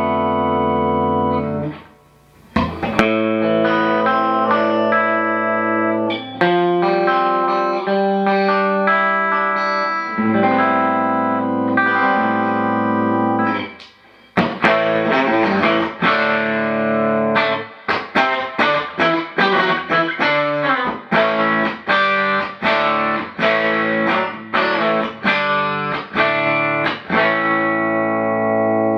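Eastwood Tiger electric guitar, with hot pickups, played through an amplifier and picked up by the camera microphone. First come held chords and single-note lines with two short pauses, then from about halfway a rhythmic pattern of strummed chords, about two a second.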